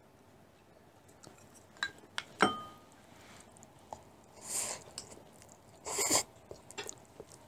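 Metal chopsticks clicking against porcelain bowls, one clink ringing briefly about two and a half seconds in, then two short slurps as noodles and soup are eaten from the bowls.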